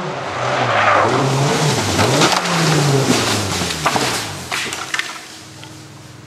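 Rally car at full throttle through a bend, the engine revs climbing and dropping several times as the driver shifts and lifts, with a few sharp cracks near the middle. It then fades away.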